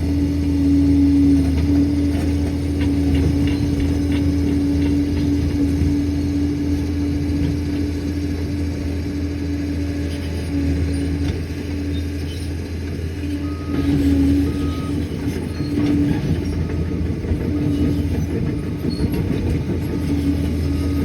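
Liebherr PR 746 crawler dozer's diesel engine running steadily at work, a continuous low hum with a steady whine over it.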